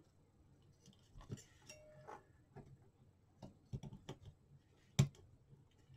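Scattered small clicks and taps of an HP 48SX calculator's parts being handled and pressed together by hand during reassembly, the sharpest click about five seconds in.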